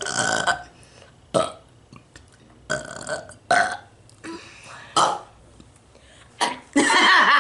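A woman and a boy burping in turn in a burping contest: a series of about seven loud burps, some short and some drawn out, the longest near the end.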